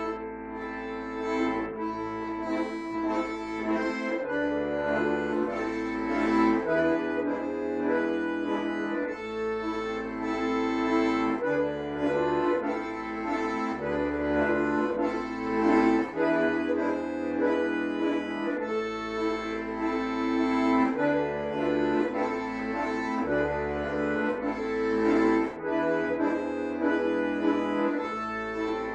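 Two bayans (chromatic button accordions) playing a folk tune together, with sustained chords and melody over a bass line whose notes change every second or two.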